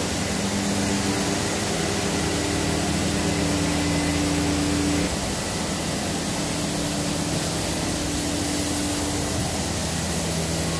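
Steady hum and rush of running workshop machinery, with several steady tones; some of the tones stop about five seconds in and one comes back a couple of seconds later.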